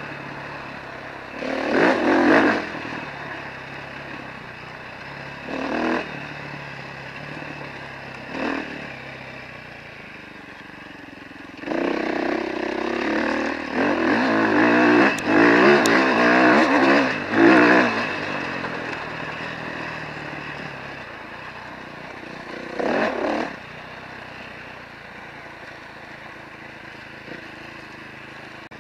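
Off-road vehicle engine running as it rides a dirt trail, with short bursts of throttle about 2, 6 and 8 seconds in, a longer spell of hard acceleration from about 12 to 18 seconds, and one more burst near 23 seconds.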